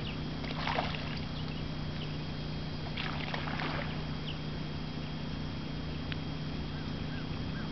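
Canoe paddling on calm water: a soft paddle splash just under a second in and another around three seconds in, over a steady low hum.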